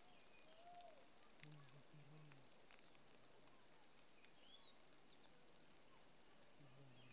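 Faint outdoor ambience with a few brief, high bird chirps and short, low calls, two in quick succession about a second and a half in and one more near the end.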